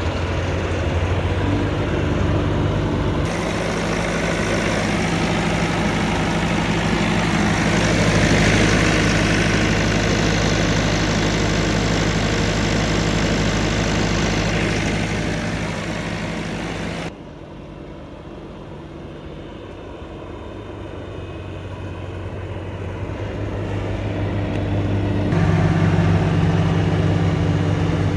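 Bobcat S650 skid steer's diesel engine running steadily. The sound drops abruptly about two-thirds of the way through, then builds back up gradually and steps up again near the end.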